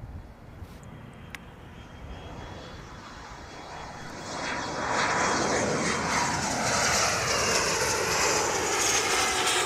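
Business jet on landing approach flying low overhead. Its engine noise swells from about four seconds in and becomes loud, and the pitch slides down as it passes.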